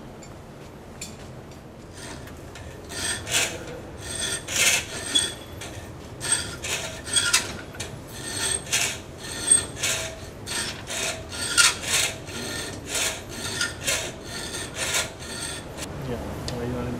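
A hand tool rasping with steady back-and-forth strokes, about two a second, starting about three seconds in and stopping shortly before the end, with a faint ring to each stroke.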